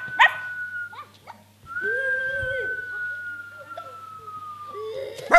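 Dog-like whining: a long, high, steady whine that sinks slowly in pitch, broken by short yelps near the start and again at the end, with a brief lower howl-like call about two seconds in.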